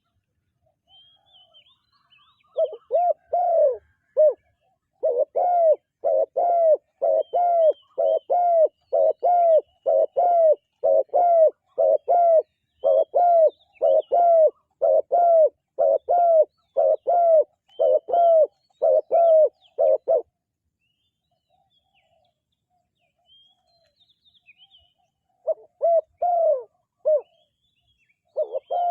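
Spotted dove cooing: a long run of rapid repeated coos, stopping about two-thirds of the way through, then starting again near the end. Faint chirps of small birds sound in the background.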